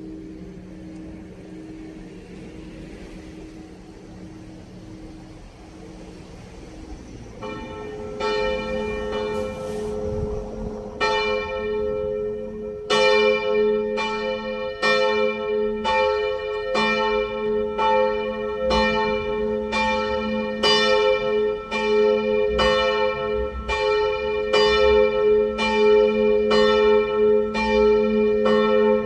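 Middle bell of a church tower being rung up: after a low hum fades out, the clapper strokes begin faintly about seven seconds in, grow louder, and from about thirteen seconds settle into full, steady ringing at about one stroke a second.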